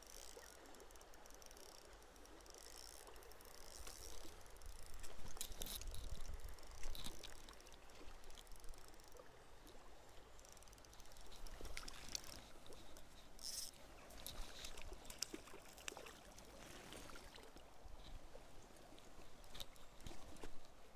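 Shallow river water running over rocks, with scattered clicks and rustling close by.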